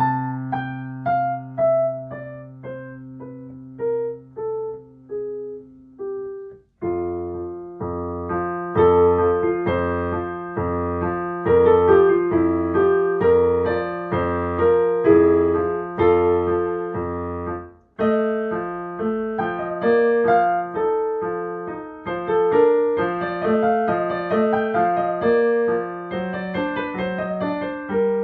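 Yamaha digital piano playing a sonatina. A slow falling melody over a held bass note gives way, after a short break about six and a half seconds in, to a livelier passage over a steady repeated bass accompaniment, with another brief pause near the middle.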